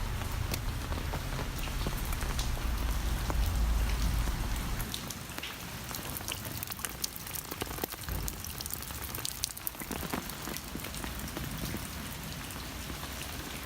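Steady rain falling, with many separate drops ticking close by. A low rumble underlies the first five seconds or so, then drops away.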